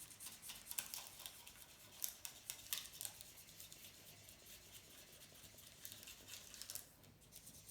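Marker scribbling on paper: faint, quick scratchy strokes of colouring in, coming thickly at first, then thinning out and stopping near the end.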